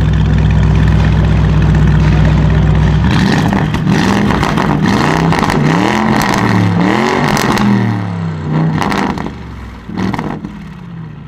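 Car engine with a modified exhaust, held at steady revs for about three seconds, then revved up and down several times. A few sharp pops follow as the revs drop near the end.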